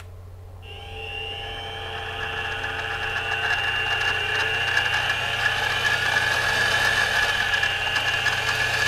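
Mini milling machine's spindle motor starting after a switch click and running through its newly fitted belt-pulley drive, a steady whine that grows louder as the speed knob is turned up. It runs much quieter with the belt conversion in place.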